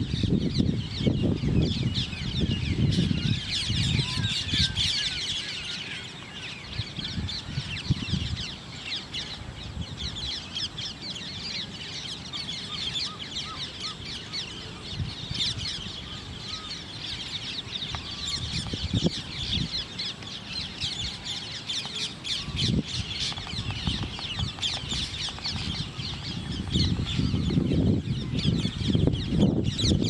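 Many birds chirping and chattering at once in a dense, continuous chorus. A low rumble sits under it for the first few seconds and again near the end.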